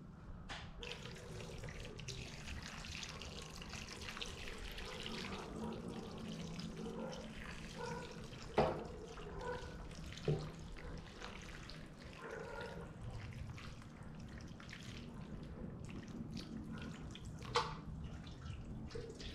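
Water with a dissolved stock cube being poured into a cooking disc full of vegetables and catfish, a steady pouring splash, with a few light knocks of the container.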